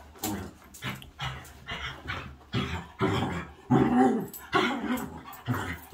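A small wet dog making short vocal noises over and over while it rubs and rolls itself in bath towels, with the rustle of the towels. It is drying itself off after a bath.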